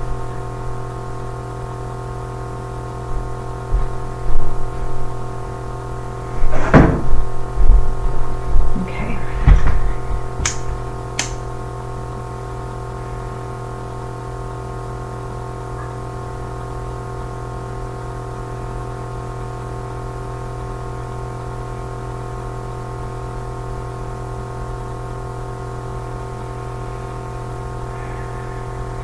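A steady hum of several held tones runs throughout. Over it, in the first dozen seconds, come handling knocks and thumps, then two sharp clicks about ten and eleven seconds in: a lighter being flicked to light sage.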